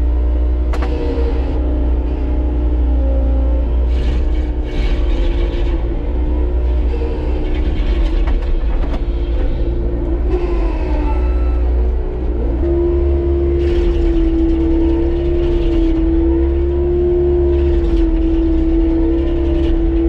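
Skid steer running with its hydraulic stump grinder attachment spinning, held at about half throttle to spare the attachment's small motor. The whine wavers with load, and irregular bursts of grinding come as the cutter bites into a tree stump. About twelve seconds in, the whine steadies and grows stronger.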